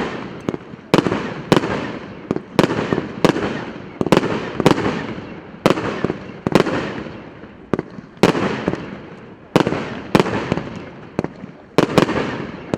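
Multi-shot firework going off, its shots bursting overhead in a steady string of sharp bangs, roughly one to two a second, each followed by a fading, echoing tail.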